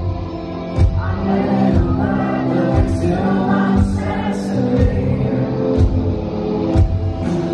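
Live indie band playing a slow song: a man sings into a microphone over sustained keyboard chords, with a kick drum thumping about once a second. The voice comes in about a second in.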